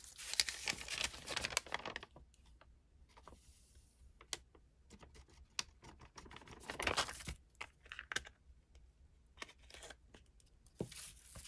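Paper rustling and crinkling as sheets are handled and moved on a work table, with scattered light taps and clicks. The longest rustles come at the start and again about seven seconds in.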